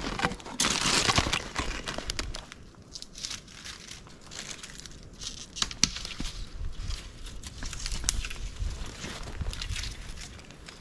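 Footsteps crunching through snow and brushing past branches, then rustling clothing and scattered snaps and clicks of sticks as a snare is taken down from its set.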